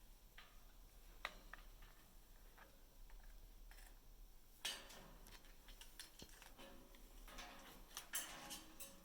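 A pet parrot playing on its back: faint scattered clicks, then scratchy rustling and scuffling from about halfway in.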